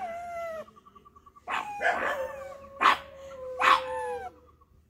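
Pug barking four times, each bark drawn out into a howling tail, with a long held howling note running under the last three barks.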